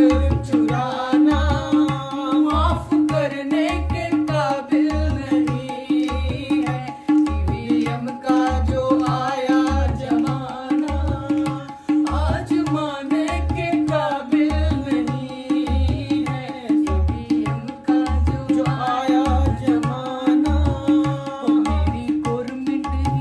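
A woman singing a Hindi folk-style song over drum accompaniment that keeps a steady, repeating beat.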